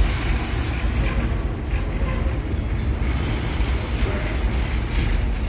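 Freight cars of a BNSF mixed freight train rolling past, a steady rumble of wheels on rail, with wind buffeting the microphone.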